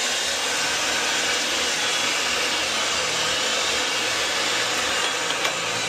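Ridgid 300 power pipe-threading machine running steadily, turning a length of steel pipe in its chuck.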